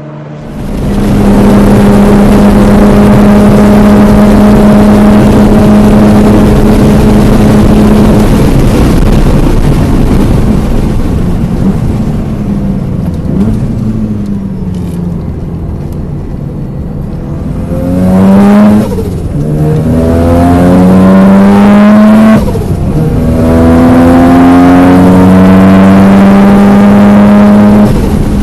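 Mazda RX-7 FD3S twin-turbo rotary engine under hard acceleration on a race circuit. It holds a steady high note for several seconds, then eases off for a stretch. It then pulls hard through the gears, its pitch rising, with two upshifts heard as sudden drops in pitch.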